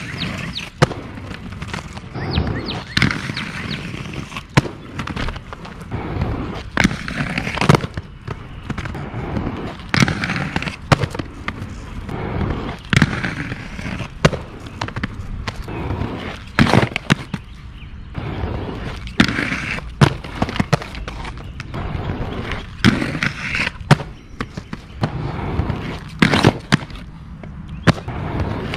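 Aggressive inline skates rolling over concrete pavement and grinding with a crunch along a rough concrete ledge, with many sharp clacks as the skates jump onto and land off the ledge over several runs.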